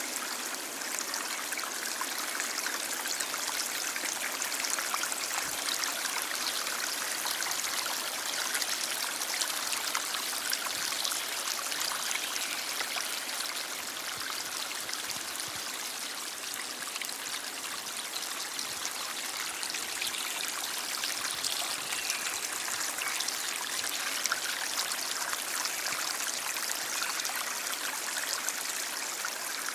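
Stream of water flowing steadily: an even, continuous wash of running water with fine trickling splashes and little low rumble.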